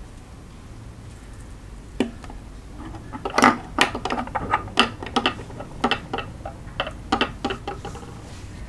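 Diamond painting pens being set down and shuffled into a row on a wooden tabletop: a run of irregular light clicks and taps, starting about two seconds in.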